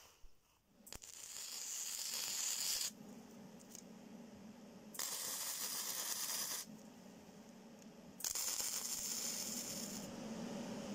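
Electric arc welding on steel scroll pieces: three bursts of crackling and sizzling, each about two seconds long, with a low steady hum in the gaps between them.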